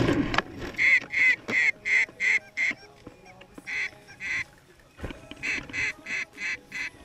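Canada geese honking in quick runs of three to six sharp honks, about three a second, with short pauses between runs. A rustle at the start and a single knock about five seconds in.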